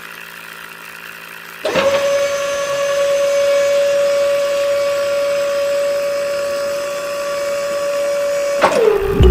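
A small electric motor starts up abruptly after a faint hum and runs with a steady, high-pitched whine for about seven seconds. Near the end it is switched off and its pitch falls as it spins down.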